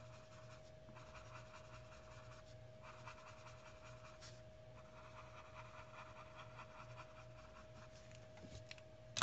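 Faint scratching of a Prismacolor colored pencil rubbed back and forth on paper, blending light brown shading into a drawn face, in runs of strokes with short pauses.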